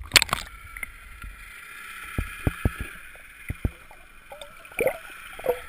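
Water splashing over a camera at the surface as it goes under, then muffled underwater gurgling with a steady hiss and a scatter of sharp knocks.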